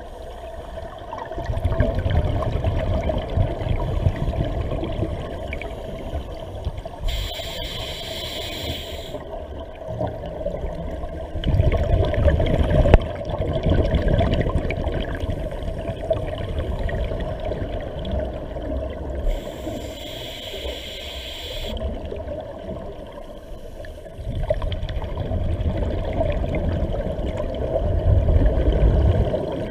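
Scuba diver breathing through an open-circuit regulator underwater: exhaled bubbles rumble out in three bouts, and two inhalations hiss through the regulator, about 8 and 20 seconds in.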